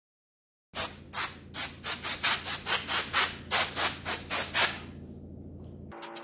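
Compressed-air blow gun firing rapid short blasts of air over circuit boards, about three to four hisses a second, starting about a second in and stopping after about four seconds. A steady low hum runs underneath.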